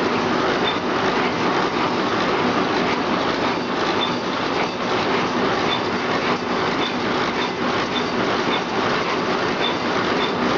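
Carton packing machine running with a steady mechanical clatter, faint high ticks coming through it at uneven intervals.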